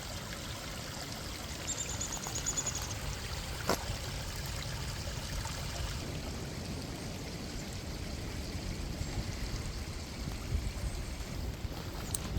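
Creek water running steadily over rocks. A brief run of high chirps sounds about two seconds in, and a single sharp click just before four seconds.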